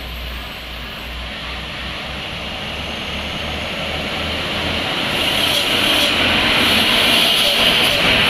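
Heavy diesel truck running and drawing closer, getting steadily louder, with a rising hiss over its low engine rumble.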